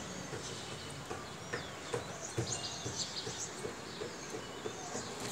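Small birds chirping, many short high calls scattered through, over steady outdoor background noise with a few light knocks.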